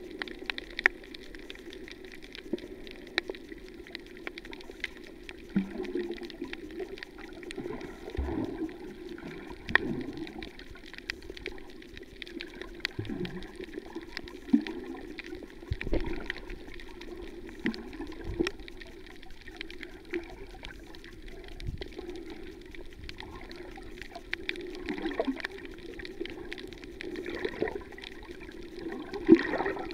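Underwater sound picked up by a camera filming on a coral reef: a steady muffled wash of water, with irregular gurgles and bubble blips every second or two and scattered sharp clicks.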